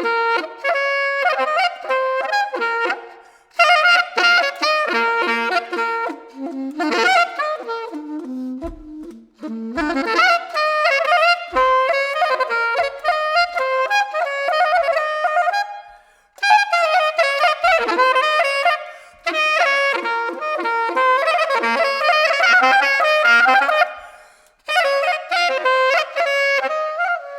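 Solo saxophone improvising in fast, jumping runs of short notes, in phrases of several seconds each broken by brief pauses.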